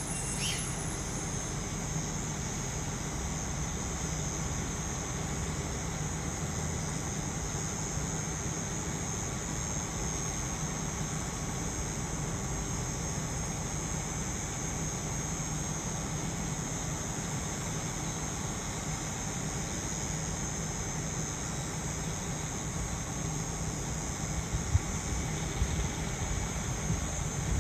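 Steady low rumble of a diesel train's engine, with insects buzzing in a steady high drone. Near the end, wind starts buffeting the microphone in sharp gusts.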